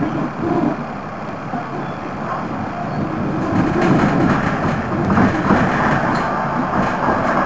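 Wegmann-built tram car running on its rails: a steady rumble of wheels and running gear heard from inside the car, growing louder about halfway through.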